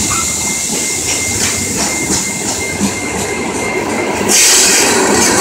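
CSX rock train's loaded hopper cars rolling past, steel wheels clacking over the rail joints. The sound grows louder and hissier about four seconds in.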